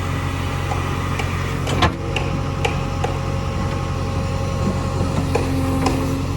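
JCB 3DX backhoe loader's diesel engine running steadily. A sharp knock comes a little under two seconds in, and light clicks are scattered through.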